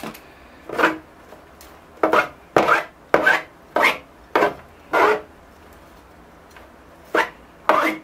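A wooden chopstick raking through a bird's nest spruce's tangled root mat to comb the roots out for repotting: about nine short scraping strokes, with a pause of a couple of seconds past the middle.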